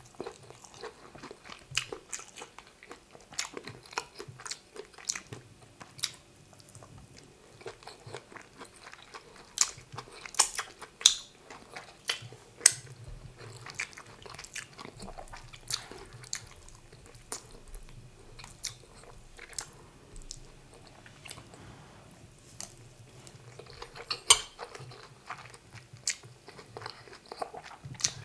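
Close-miked chewing and wet mouth sounds of a person eating rice with egusi soup and meat: an irregular run of sharp smacks and clicks, a few much louder than the rest.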